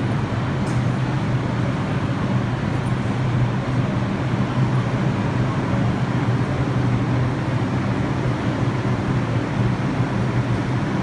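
Steady low hum and noise of an R62 subway train standing at the platform, with no change in pitch or level.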